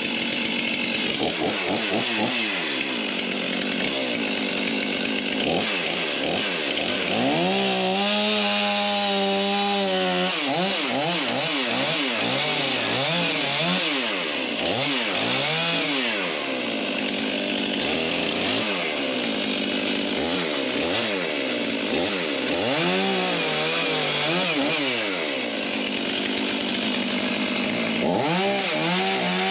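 Stihl gas chainsaw trimming broken, splintery wood off a hard maple log. The engine revs up and down over and over as it cuts, and is held at full speed for a few seconds about a quarter of the way in.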